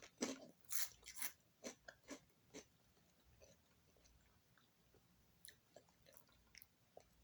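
Someone chewing a mouthful of dry Magic Spoon cereal pellets: a quick run of crunches that die away over the first two and a half seconds, then a few faint clicks of chewing near the end.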